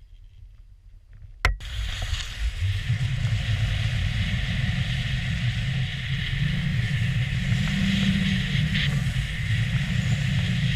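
Skis running and scraping over snow with wind rushing over the microphone, starting suddenly after a sharp click about a second and a half in.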